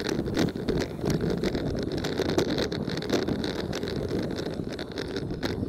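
Toyota Tacoma pickup driving on a dirt road: a steady rumble of engine and tyres on dirt and gravel, with wind buffeting the microphone.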